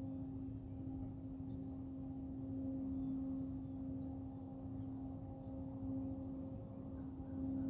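Continuous industrial hum from the GM Milford Proving Grounds: one steady low tone holding its pitch, with fainter higher overtones, over a low rumble.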